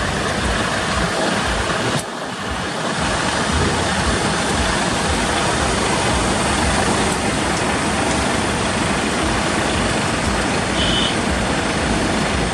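Steady noise of trucks' diesel engines and traffic, dipping briefly about two seconds in, with a short high beep near the end.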